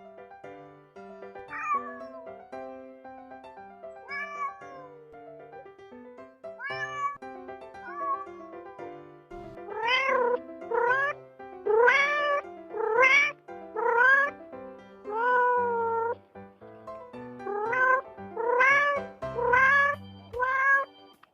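Domestic cats meowing over soft background music: a few quieter meows in the first half, then a run of loud, repeated meows about one a second from roughly ten seconds in.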